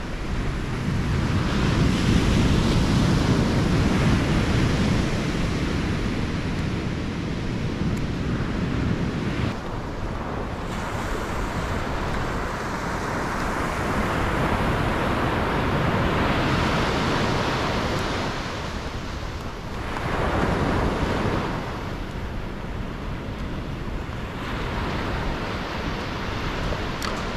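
Ocean surf breaking and washing up a sandy beach, rising and falling in slow surges, with wind buffeting the microphone.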